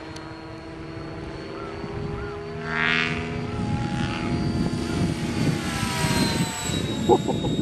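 Align T-REX 700E electric RC helicopter in flight: its rotor and drive whine with a steady pitched hum, growing louder as it comes nearer.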